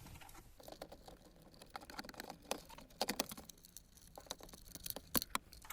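Faint, scattered plastic clicks and taps as a bracket is undone and a car's climate control unit is handled.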